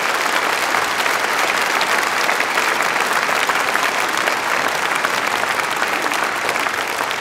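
Concert audience applauding steadily: many people clapping at once in a large hall.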